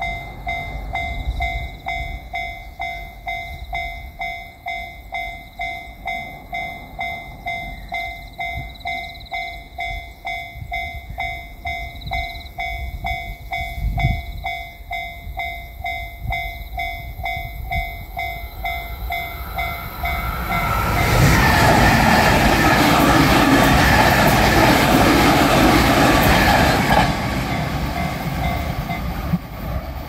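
Japanese level-crossing alarm ringing its repeating electronic clang about twice a second. About 21 s in, a JR Shikoku 8000 series limited express electric train passes through the crossing, loud with wheel and rail noise for about six seconds before it falls away.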